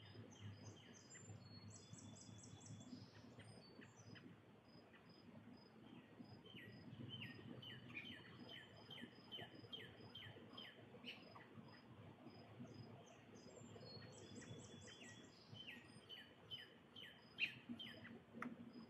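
Faint outdoor ambience with small birds chirping: runs of quick, falling chirps and short high twittering notes repeating over a low hum. A single sharp click comes near the end.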